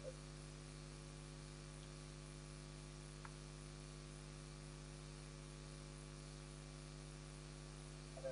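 Steady electrical mains hum with a faint hiss on the sound system, with no speech.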